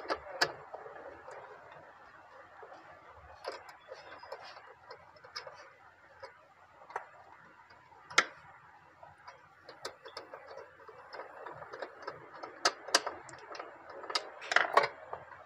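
Scattered small clicks and taps of electrical parts being handled and fitted while a bulb is connected as a test load, a sharp one about eight seconds in and a busier cluster near the end.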